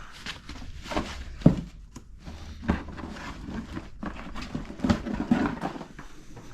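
Handling noise: irregular knocks, clunks and rustling as hard objects are picked up and moved about. The sharpest knocks come about a second and a half in and again near five seconds.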